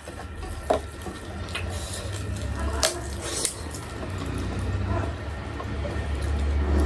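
Close-up eating sounds: wet chewing and lip smacks, with fingers mixing rice on a steel plate, as a scatter of short smacks and clicks over a low steady hum.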